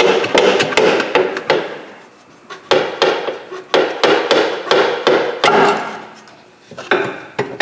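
Quick metal knocks and clatters from parts and tools being handled at the rear shock mount and suspension, in three runs with short pauses between.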